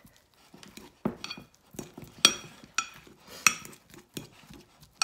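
A metal fork mashing ripe bananas in a ceramic dish: soft squishing broken by a string of sharp, irregular clinks as the tines strike the bottom of the dish, the loudest about two and three and a half seconds in.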